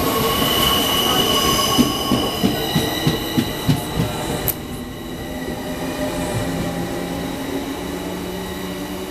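Double-deck Z 20500 electric multiple unit running past the platform, its traction motors whining in several steady tones while the wheels click over rail joints about three times a second. About four and a half seconds in the sound drops off suddenly, leaving the low steady hum of a second train drawing in.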